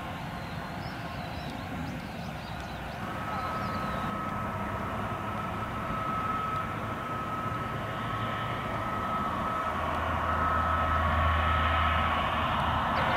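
Jet engines of an Airbus A321neo airliner running at taxi power, a steady whine that comes in about three seconds in and grows louder as the aircraft turns toward the listener, with a low hum rising near the end.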